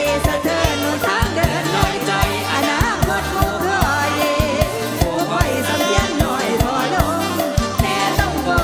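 Live Isan mor lam band music: a fast, steady drum beat of about four strokes a second under bass and a sung melody.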